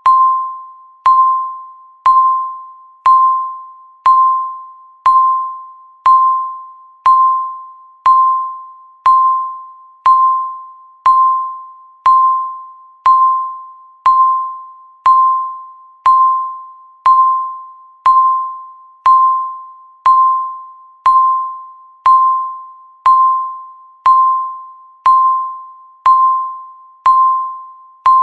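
Countdown timer beep: a single clear electronic tone struck once a second, each one starting sharply and fading away before the next, ticking off the seconds left.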